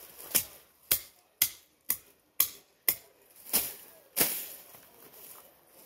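Weeds being hacked at the base with a hand blade: eight sharp strokes, about two a second, which stop a little after four seconds in, followed by faint rustling of the vegetation.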